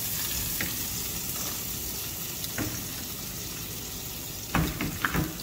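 Chorizo sausages sizzling in a frying pan, a steady hiss of hot fat. Near the end, a few sharp clacks of metal tongs against the plate as a sausage is lifted out.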